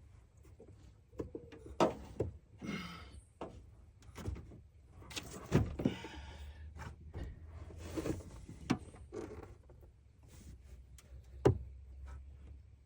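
Scattered knocks and thunks with a few short rustling stretches, the loudest knock near the end, over a faint low hum.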